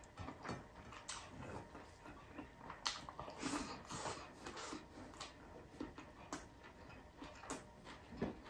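A person eating with his hands: chewing and lip-smacking, a string of irregular wet clicks and smacks.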